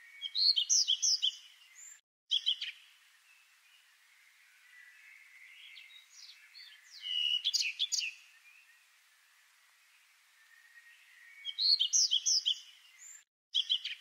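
A songbird singing short phrases of quick, high warbled notes: three phrases about five seconds apart, each about a second and a half long, over a faint steady hiss.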